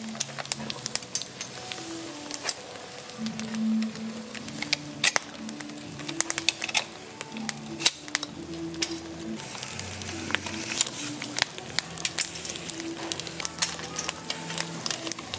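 Whole snails sizzling and crackling in their shells on a charcoal grill, with frequent sharp pops and clicks. Music plays quietly underneath.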